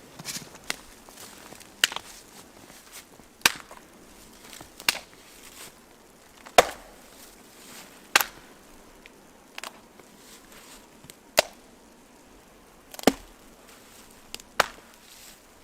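Wood being chopped: about eleven sharp strikes, roughly one every second and a half.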